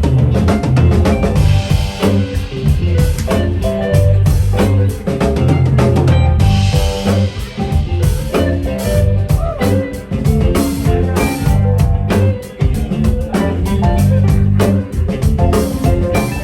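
Live jam band playing an instrumental passage on drum kit, guitar and bass, with no singing.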